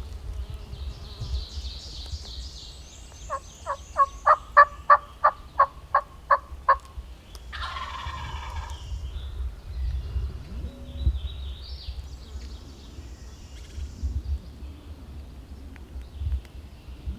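A run of about a dozen evenly spaced turkey yelps, about three a second. A wild turkey gobbler then gobbles once in a rattling burst lasting a second or so. Faint songbird chirps sound around them.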